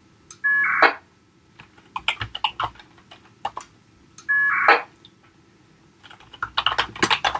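Computer keyboard typing short commands in quick runs of clicks. Twice, about half a second in and again just past four seconds, a half-second burst of VHF packet radio data tones cuts in, each opening with a brief steady tone: a command going out over the AX.25 link and the reply coming back.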